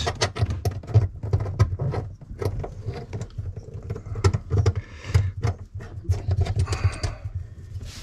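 Scattered small clicks, taps and rattles of hands working plumbing fittings in a cramped sink cabinet: a braided supply hose being threaded by hand onto a shutoff valve.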